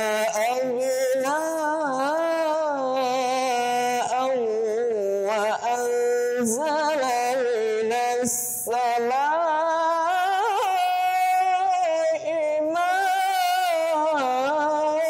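A man reciting the Quran in the Hijaz maqam: one voice sings a long melismatic line of held notes with wavering ornaments and pitch glides. It breaks off briefly for breath a few times, once with an audible intake of breath about halfway through.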